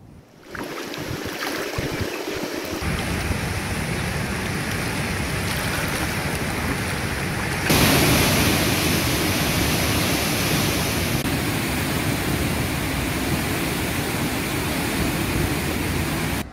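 Floodwater rushing through the Jurala dam's open spillway gates: a steady rush of falling, churning water, louder about eight seconds in.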